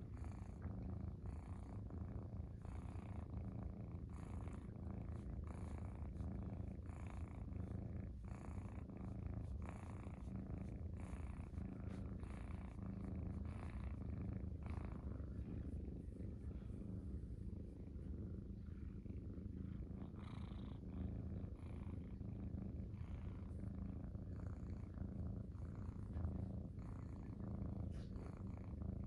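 Munchkin cat purring steadily while being stroked.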